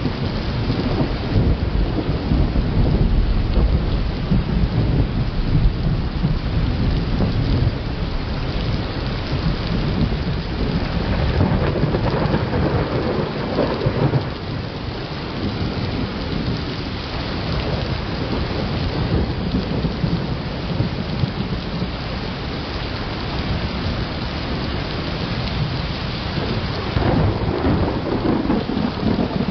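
Thunderstorm: steady rain with continuous low rolling thunder, swelling again near the end.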